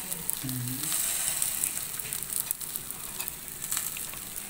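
Butter-basted chicken pieces sizzling steadily on a wire grill over glowing charcoal, with scattered small crackles.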